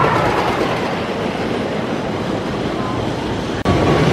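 Wooden roller coaster train running along its wooden track, a steady noisy rumble. About three-quarters of the way through the sound breaks off for an instant and comes back louder.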